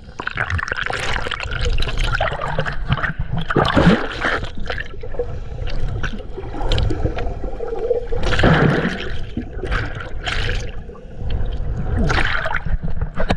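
Water splashing and sloshing close to the microphone as a person swims, in irregular bursts.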